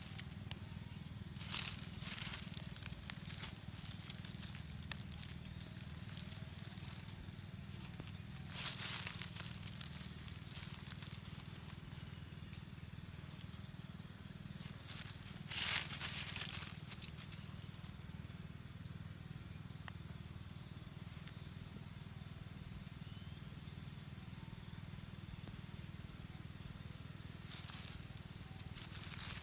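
Dry bamboo leaf litter crackling and rustling in four short bursts as a dead squirrel is shifted about on it by hand, the loudest about halfway through, over a steady low hum.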